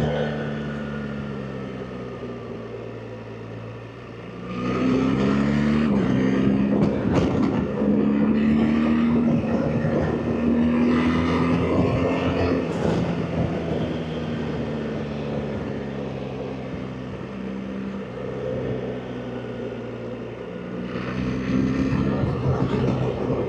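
BMW R 1300 GS Adventure's boxer twin under way with wind noise: the rider rolls off and the engine note falls, then opens the throttle hard about four seconds in and the pitch climbs. The engine eases off again and picks up once more near the end.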